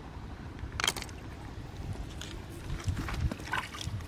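Water splashing and dripping at a rocky pool edge: a sharp click about a second in, then several small plinks and splashes, over a steady low rumble.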